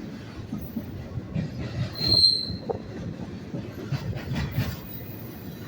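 Freight train rolling along the tracks with a steady low rumble, and a brief high-pitched wheel squeal about two seconds in.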